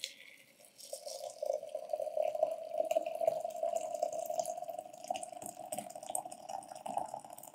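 Hot tea poured in a thin stream from a teapot into a ceramic mug: a steady trickling splash that builds up over the first second, its pitch edging up as the mug fills.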